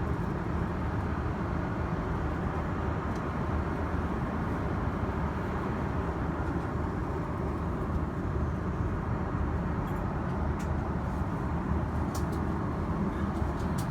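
Steady low rumble and hiss of a moving vehicle, heard from inside, with a few faint clicks near the end.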